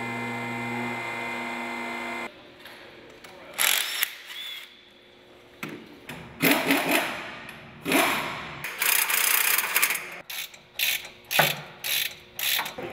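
A steady hum for the first couple of seconds, then a mechanic's wrench ratcheting in short bursts, about eight times.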